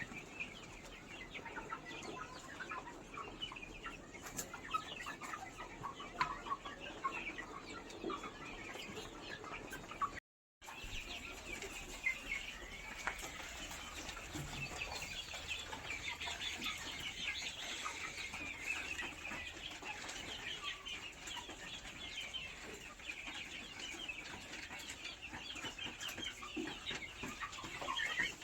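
A flock of Black Australorp and Kadaknath chickens clucking and calling over one another. The sound drops out completely for a moment about ten seconds in. After that the calling is denser and higher-pitched.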